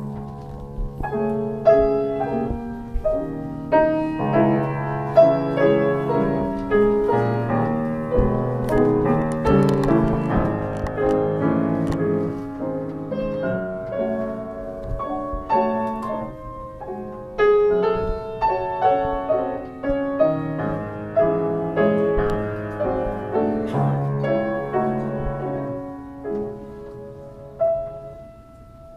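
Solo piano playing a flowing melody with chords.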